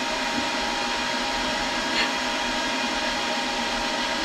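Steady whirring hum of a motor-driven shop machine running at a constant pitch, with a light knock about two seconds in.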